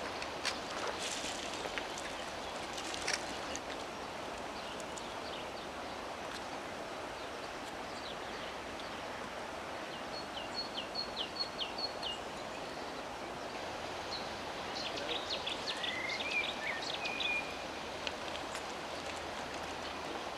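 Steady outdoor rushing noise, with birds chirping in the trees. About ten seconds in there is a run of short, repeated high chirps, and a few seconds later a quicker run with a rising call. A few sharp clicks come in the first few seconds.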